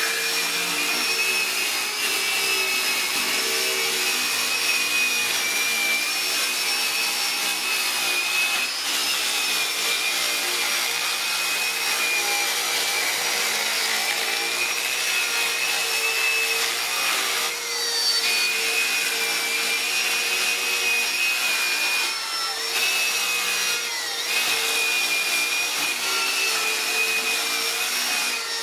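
Handheld electric die grinder spinning a brush wheel against carved wood: a steady high-pitched motor whine that wavers slightly as the brush bears on the wood, with a rubbing hiss. The whine briefly dips a few times in the second half as the brush is eased off or pressed in.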